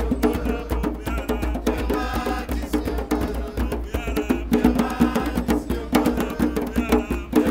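Soundtrack music with dense percussive clicks and drums over a steady low bass, and a short pitched phrase that comes back about every second and a half.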